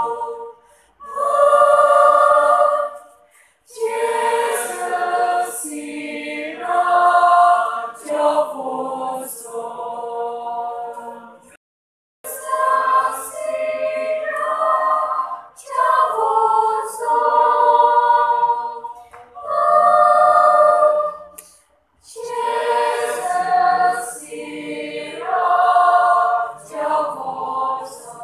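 A choir of voices singing unaccompanied, in phrases broken by short pauses.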